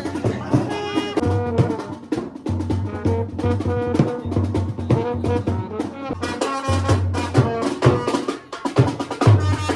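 Background music with a steady beat of bass drum and percussion.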